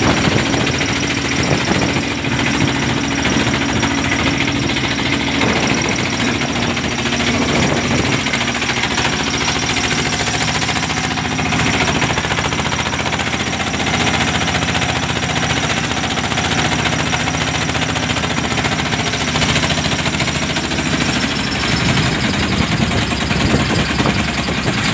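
A boat's inboard engine running steadily with a rapid, even chug, over the rush of wind and choppy sea.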